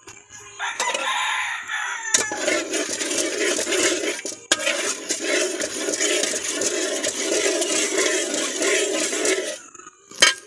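Chickens close by: a rooster crowing and clucking, loud and continuous for most of the stretch before stopping shortly before the end. A single sharp knock follows.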